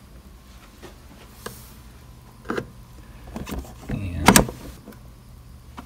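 Plastic resin tank of a Form 3 3D printer being pushed and settled into its seat on the printer: a few light knocks and clicks, the loudest clunk a little past four seconds in.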